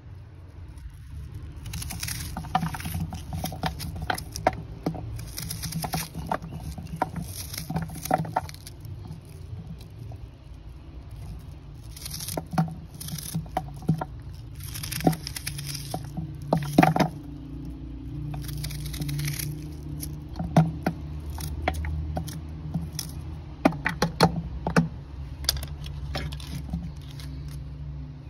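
Knife cutting a raw onion held in the hand, in irregular crisp cuts, with the pieces dropping into a plastic bucket. A low steady rumble runs underneath.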